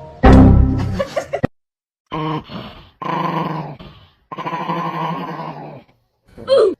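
A pet dog growling and grumbling in three drawn-out stretches, ending with a short falling yelp. A loud sudden burst about a quarter second in is the loudest sound.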